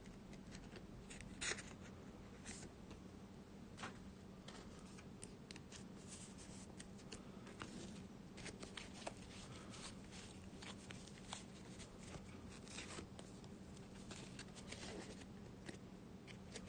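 Yu-Gi-Oh trading cards being handled and laid down on a tabletop: faint, scattered rustles and light clicks, the loudest about a second and a half in, over a faint steady hum.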